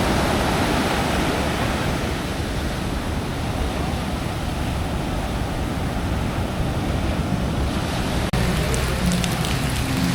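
Steady rush of sea surf and wind, with rain falling. About eight seconds in the sound breaks off abruptly and resumes with scattered sharp ticks over the same hiss.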